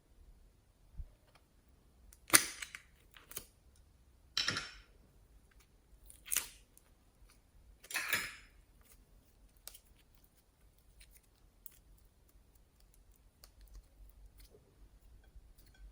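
Slime being squeezed and pressed by hand, giving about five sharp popping snaps as trapped air bursts, then fainter scattered crackles.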